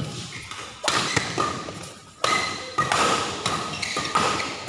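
Badminton doubles rally: rackets strike the shuttlecock about once a second, each hit sharp and echoing in the large hall, with sneakers squeaking and feet thumping on the court mat between shots.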